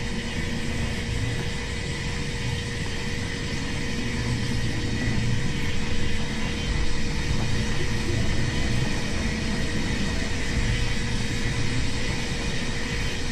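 Noise-music soundtrack: a dense, steady drone of low rumble with a constant hum tone and hiss over it.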